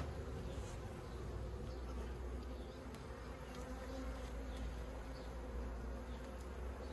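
Honeybees buzzing steadily in a low hum around an opened hive during a frame inspection.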